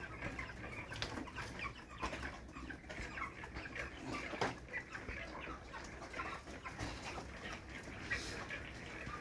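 A flock of broiler chickens making many short, overlapping chirps and calls, with a steady low hum underneath. The flock is sick with chronic respiratory disease (CRD), which the owner says has set off a lot of wheezing.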